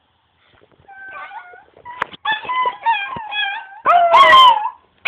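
Chihuahua howling in a run of short, wavering whines that builds to one loud howl falling in pitch about four seconds in.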